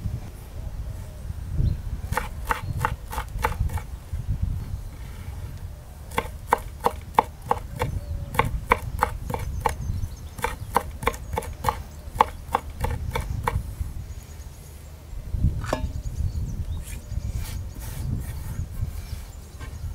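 Kitchen knife chopping fresh herbs against the bottom of a large bowl: runs of quick, sharp knocks at about four a second, broken by short pauses, with the knocks thinning out near the end.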